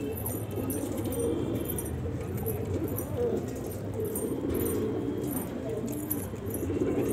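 Domestic pigeons cooing continuously, low warbling coos overlapping one another.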